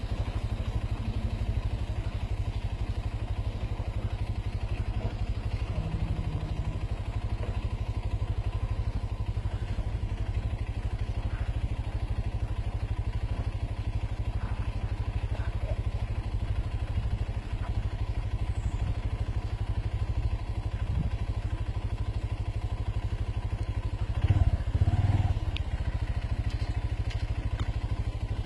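4x4 vehicle's engine running steadily at low revs. A louder thump with some clatter comes briefly near the end.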